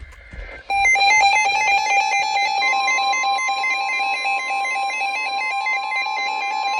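Electronic emergency alert tones: a rapid warbling tone that steps quickly between pitches, joined about two and a half seconds in by a steady long tone near 1 kHz, typical of the 1050 Hz NOAA Weather Radio warning alarm that comes before a warning message.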